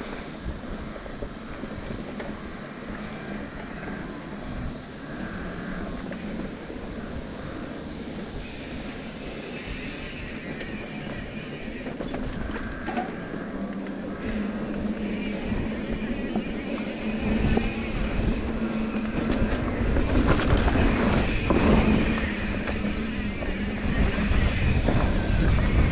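Mountain bike rattling and rumbling over rough, rocky trail, with a heavy low rumble building and getting louder over the last third.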